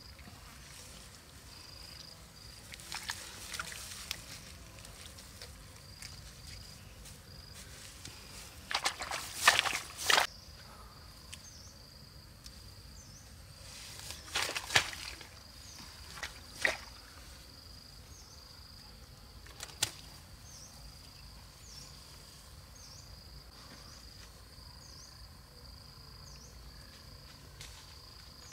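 A steady high-pitched insect call runs on throughout, broken by several short bursts of rustling grass and handling noise, the loudest about nine to ten seconds in and again around fifteen seconds in.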